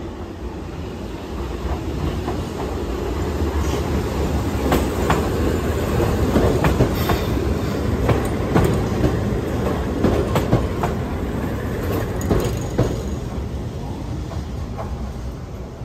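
A Keihan Ishiyama-Sakamoto Line electric train runs past close by over the points. Its rumble builds and fades, and its wheels clack repeatedly over the rail joints and switches, with some wheel squeal.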